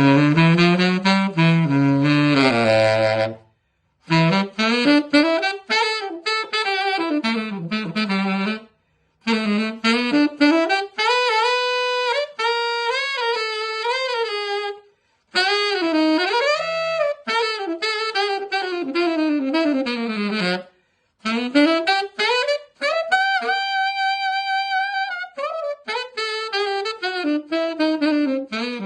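Tenor saxophone played solo on a J&B Custom Pink Panther mouthpiece with a synthetic reed: jazz phrases of fast running lines and wide swoops up and down, separated by short breaths, with one long held note about three-quarters of the way through.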